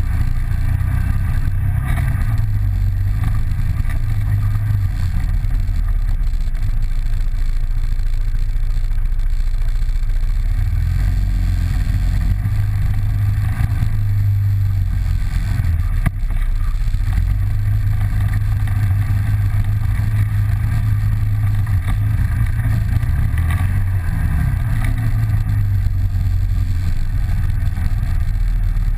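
Polaris 800 twin-cylinder engine of an off-road vehicle running under way on a trail, its note shifting up and down as the throttle changes.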